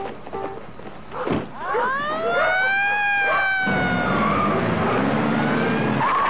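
Police car siren wailing: one long rise in pitch about a second and a half in, then a slow fall. A low steady hum joins about halfway through.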